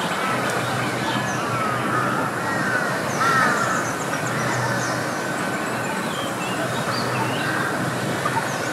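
Many birds chirping and calling, short rising and falling notes scattered throughout, over a steady background rumble.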